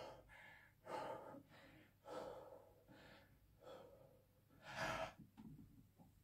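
A man breathing hard between reps late in a 50-rep barbell back-squat set: faint, short gasping breaths, about one a second.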